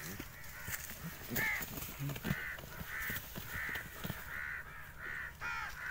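An animal calling repeatedly: about seven short calls, evenly spaced at roughly one and a half a second, starting about a second and a half in, over faint rustling in dry grass.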